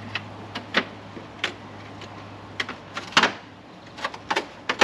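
Irregular light clicks and taps of a stick-on carbon fiber strut cover being handled and pressed into place against the car's trim, about a dozen in all, the loudest about three seconds in.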